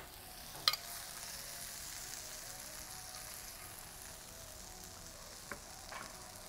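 Seared shrimp sizzling quietly in a hot frying pan taken off the heat, the sizzle slowly dying away. A sharp clink of a utensil on the pan comes just under a second in, and two lighter clicks near the end.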